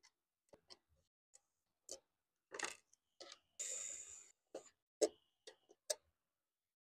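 Short, sharp clicks and taps of tools and screws on the J3 Pro's aluminium case as the back-plate screws come out, with a brief whir of a DeWalt cordless screwdriver backing out a corner screw about three and a half seconds in.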